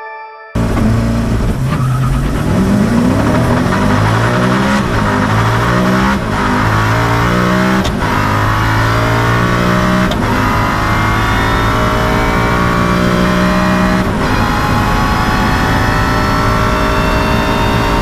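Koenigsegg One:1's twin-turbocharged V8 at full acceleration, heard from inside the cabin. The engine note climbs steadily and drops sharply at each upshift, and each gear lasts longer than the last as speed builds.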